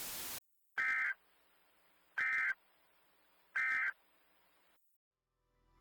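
A steady static hiss cuts off, then three short, identical bursts of warbling digital data tones come about a second and a half apart: the Emergency Alert System end-of-message (EOM) SAME code, signalling that the alert broadcast is over.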